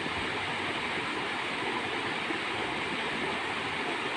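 Shallow rocky river rushing steadily over boulders and small rapids.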